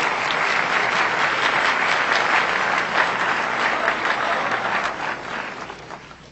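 A large audience applauding, a dense patter of many hands clapping that dies away near the end.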